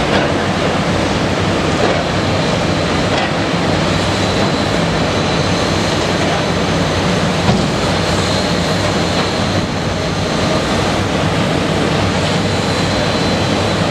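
Caterpillar 320DL excavator's diesel engine running steadily while the machine works, with a thin steady high-pitched whine over the engine noise.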